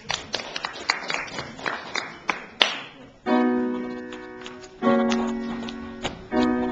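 Grand piano: the same chord struck three times, about a second and a half apart, each ringing and fading. Before it come a run of light taps and knocks and one sharp click.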